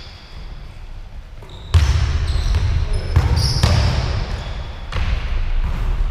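Basketball bouncing on a hardwood gym floor during play, several irregular dribble thuds starting about two seconds in, with a short high squeak of sneakers on the floor.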